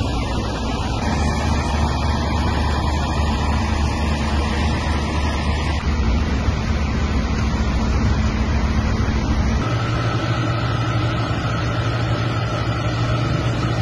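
Fire-truck engines and pumps running steadily while water cannons spray, with a constant rushing hiss over a low engine hum; the hum changes pitch at two cuts, about six and ten seconds in.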